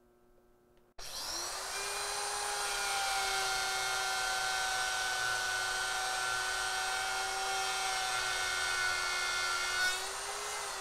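Electric router switching on about a second in and spinning up to a steady high whine as it cuts a quarter-inch-deep pocket into a wooden frame.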